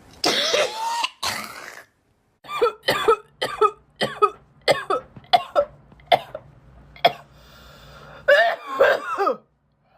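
A girl coughing in a fit: two long coughs, a short pause, then a rapid string of about a dozen short coughs, and near the end a longer, strained cough with her voice in it.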